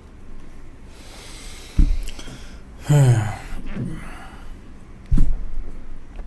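A person's breath and throat sounds close to the microphone: a breathy intake, then a short voiced exhalation falling in pitch about three seconds in. Two dull low thumps come about two and five seconds in.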